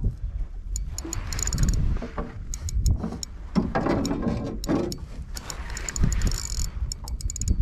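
A Shimano Stradic spinning reel is cranked in spurts to pump up a heavy fish, its gears and bail giving irregular clicking and ticking. Wind buffets the microphone with a low rumble throughout.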